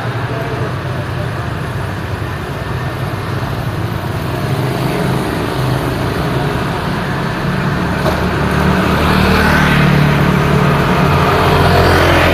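City street traffic: a steady wash of passing cars. A vehicle's engine and tyre noise grows louder from about eight seconds in and is loudest near the end as it passes close.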